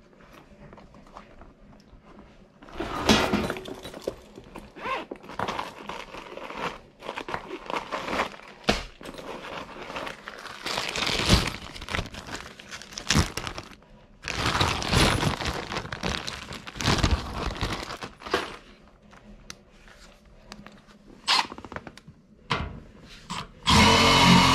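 Hands handling parts while swapping a blower motor's run capacitor: scattered knocks, clicks and clatter, with crinkling of a plastic zip bag, in uneven bursts. Louder music comes in near the end.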